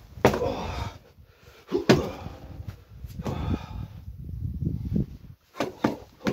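Kicks and punches landing on a heavy punching bag as sharp thuds: two spaced blows in the first two seconds, then a quick run of three blows near the end.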